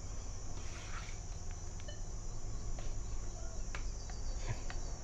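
Steady chirring of crickets in the background, with faint clicks and taps as the metal detector is handled.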